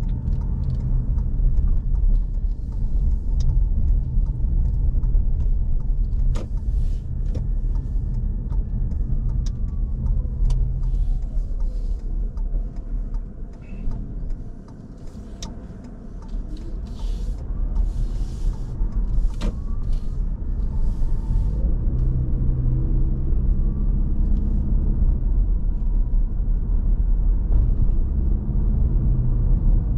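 Car engine and road noise heard from inside the cabin while driving: a steady low rumble. It dips for a couple of seconds about halfway through, then picks up again.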